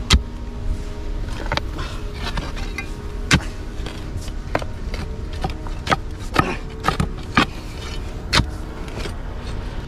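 A steel spade chopping and prying into hard, stony soil: a sharp scraping thud roughly every one to two seconds, about eight strikes in all.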